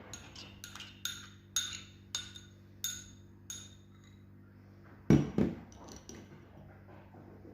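Spoon clinking against a strainer and bowl while grated red onion is strained, about six ringing clinks in the first three and a half seconds, then a louder knock about five seconds in.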